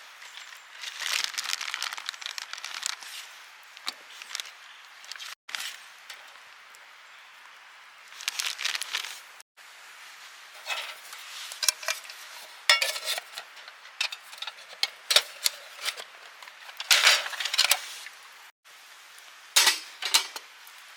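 Cooking gear being handled: irregular metal clinks and knocks of a mess tin and utensils mixed with crinkling, rustling noises, in short bursts broken by a few sudden dead-silent gaps.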